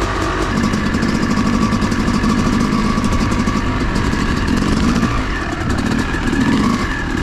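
Dirt bike engine running and revving up and down under the throttle, with a few louder swells in the second half.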